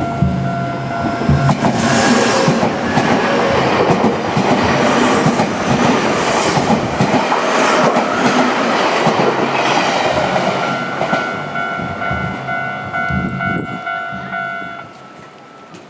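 Nankai Main Line electric train passing over a level crossing, its wheels clattering over the rail joints, loudest from about 2 to 10 seconds in and then fading. A steady crossing warning tone sounds at the start and again from about 11 seconds until it stops near the end.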